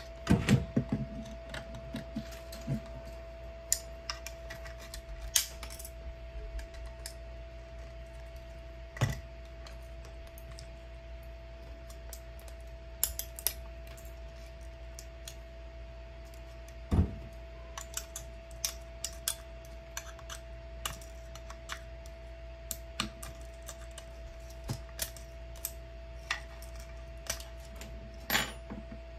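Irregular clicks and snaps of 3D-printed plastic goggle parts being handled and support pieces broken off, a few sharper cracks among lighter taps, over a steady hum.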